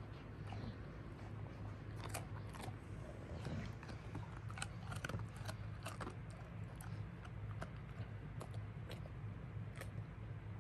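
Weimaraner chewing a dog biscuit softened in water, with irregular crunchy clicks, over a steady low hum.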